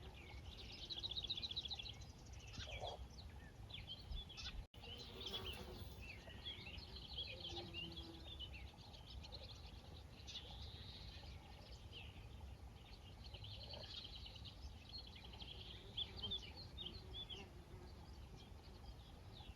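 Small songbirds chirping and trilling on and off, several short calls and fast trills overlapping, faint against a low outdoor hum.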